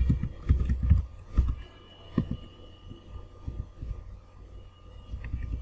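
Keystrokes and mouse clicks on a computer keyboard and mouse, heard as dull irregular thumps with a few light ticks, closest together in the first second and a half as a word is typed. A faint steady electrical hum lies underneath.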